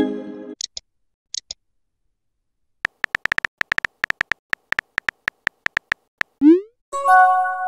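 Chat-app sound effects: about three seconds of rapid, even phone-keyboard typing clicks, then a short rising swoosh and a chiming notification tone near the end, as of a message being sent and arriving. At the start a tone fades out and two small high blips follow.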